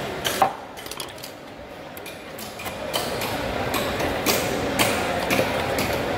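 Large knife striking a wooden chopping block and a trevally's body as the fish is cut: a sharp chop about a quarter second in, a quieter stretch, then a run of knife strokes about two a second in the second half.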